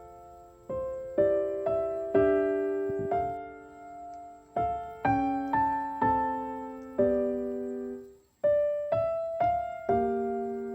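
Slow solo piano music: single notes and small chords struck about once or twice a second, each ringing and fading, with a brief break about eight seconds in.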